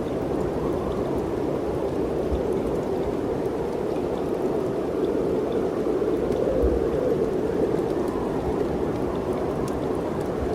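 Steady rush of mountain wind, swelling slightly about six seconds in.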